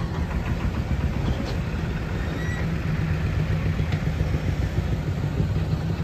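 Diesel engines of a JCB backhoe loader and a tractor running steadily together: a continuous low rumble with no revving.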